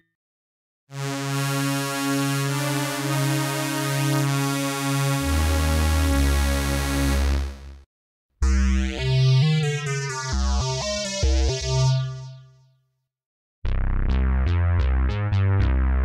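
Korg microKORG software synthesizer playing three Retro-bank presets in turn. First comes a held chord with a bass line joining about halfway. Then a second patch with a sweep that rises and falls in pitch, and finally a fast repeating pattern near the end.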